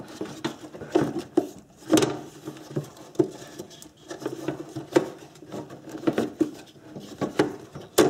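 Hands handling a metal battery tray and the parts around it in a car's engine bay: irregular light knocks, clicks and scrapes, the sharpest knock about two seconds in.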